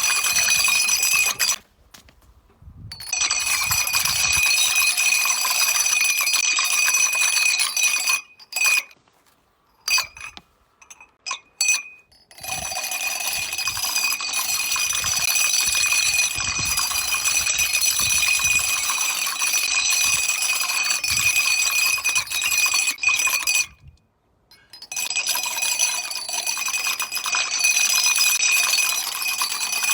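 Long chains of dominoes toppling: a dense, fast clatter of small clicks with a steady high ring, stopping briefly three times before starting up again.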